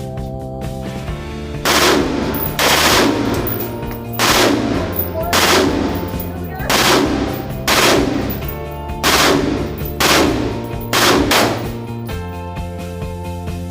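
Automatic gunfire: about nine short bursts roughly a second apart, over background music.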